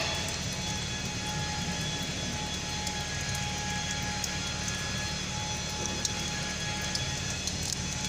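Steady mechanical drone with a few faint steady high tones over it and occasional light clicks.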